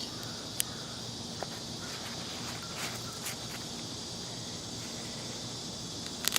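Steady high chirring of insects in the background, with a few light clicks and a sharper click just before the end.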